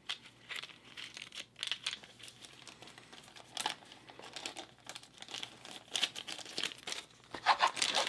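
Clear plastic bag crinkling as it is handled, in short irregular rustles.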